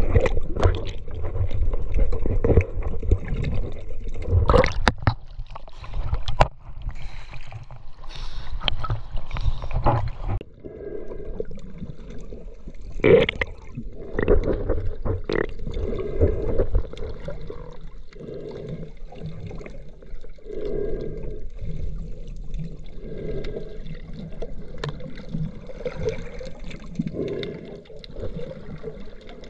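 Seawater sloshing and splashing around an action camera at the surface, with sharp splashy clicks, for the first ten seconds or so. It then gives way to quieter, muffled underwater gurgling.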